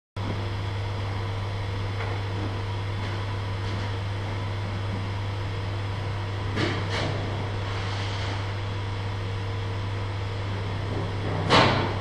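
Steady low hum and hiss of the small motors driving plastic-bag 'bird' sculptures, with brief plastic rustles about halfway through and a louder one near the end.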